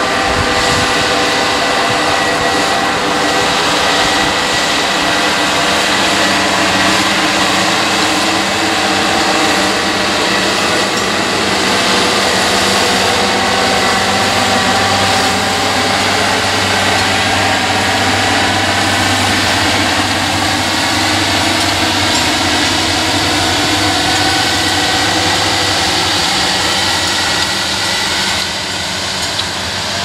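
Massey Ferguson 7618's six-cylinder diesel engine running steadily under load as the tractor pulls a five-furrow reversible plough, its pitch drifting slightly up and down.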